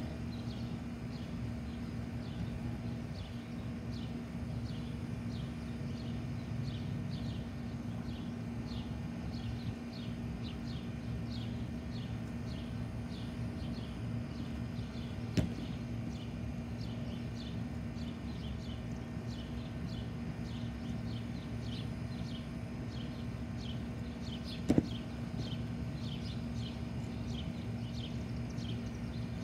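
Outdoor background: a steady low hum with a short high chirp repeating about twice a second. Two brief sharp knocks come about fifteen and twenty-five seconds in, the second the louder.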